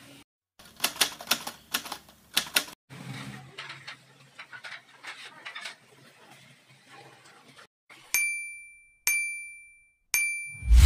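A rapid run of sharp clicks and softer clicking, then three electronic countdown beeps about a second apart, each a single high tone that fades out. A loud low thump comes in right at the end.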